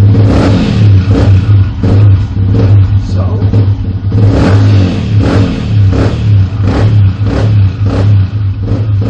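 Yamaha WR125R's single-cylinder four-stroke engine running and revved in repeated quick throttle blips, a little less than twice a second.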